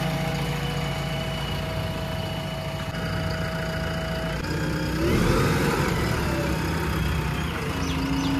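JCB 3DX Plus backhoe loader's diesel engine running steadily, with a steady whine over it, getting louder for a couple of seconds just past the middle as the machine works.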